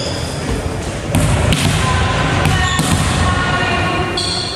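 Sports-hall noise between volleyball rallies: a few dull thuds of a volleyball bouncing on the wooden floor, with players' voices, all echoing in the large hall.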